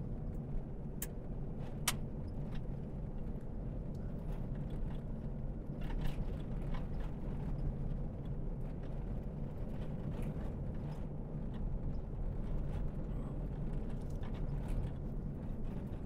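Steady engine and tyre noise heard from inside a truck cab while driving on a dirt road, with a few short clicks or rattles.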